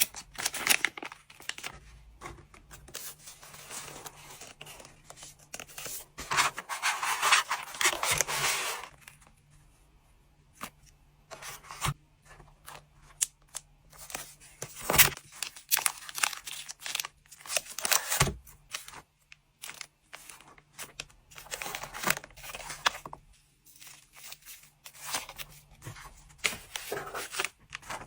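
Trading cards being packed by hand: plastic and paper packaging rustling and crinkling in irregular bursts, with sharp taps and clicks. About six seconds in there is a longer, louder tearing sound lasting about three seconds.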